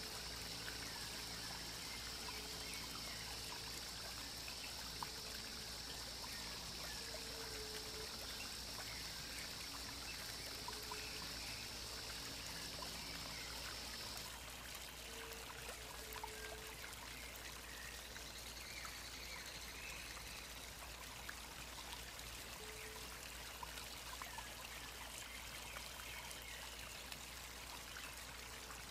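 Steady trickle of flowing stream water, with faint calls now and then in the background. A steady high hiss runs under it and cuts off abruptly about halfway.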